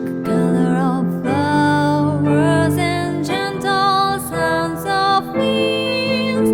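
Slow, gentle ballad: a female voice holding long, wavering notes over a soft piano accompaniment.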